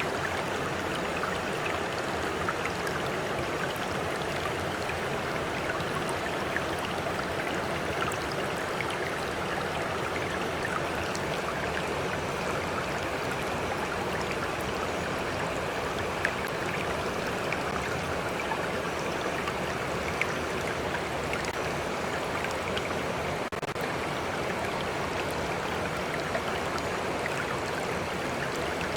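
A stream flowing steadily: an even rush of running water with faint small splashes and drips scattered through it.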